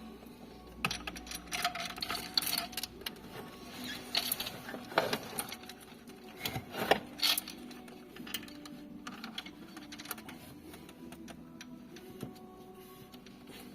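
Irregular sharp clicks and taps, thickest in the first half and sparser later, over a steady low hum.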